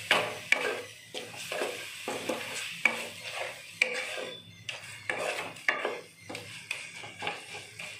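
Wooden spatula stirring and scraping thick fried masala paste around a steel kadai, knocking against the pan about twice a second.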